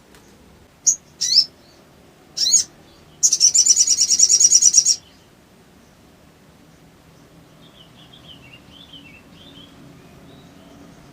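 A sogon (sogok ontong) bird singing: a few short, sharp high chirps, then a loud, rapid trill of about eight notes a second lasting nearly two seconds, with fainter twittering later.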